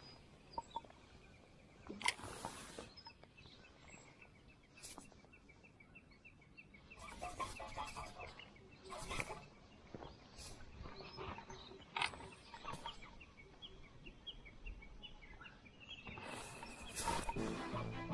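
Spinning reel being cranked to retrieve a lure, with soft rustles and handling knocks from the rod, reel and jacket every few seconds.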